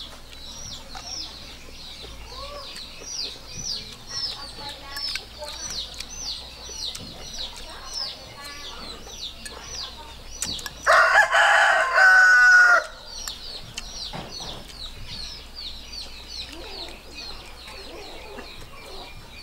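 A rooster crows once, loud, for about two seconds, starting about eleven seconds in. Throughout, a bird repeats a short high falling chirp about twice a second.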